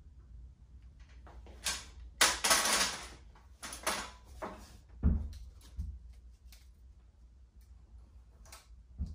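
Wooden 2x4 frame of a fold-up ceiling stand being swung up and down by hand: wood knocking and scraping against the ceiling framing where it catches. There is a loud scraping rub about two seconds in, a dull thump about five seconds in, then lighter knocks.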